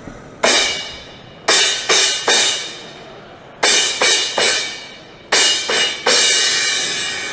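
Drum kit played in accented hits, crash cymbals together with drums. There is one hit, then three groups of three hits each, and the last crash is left ringing.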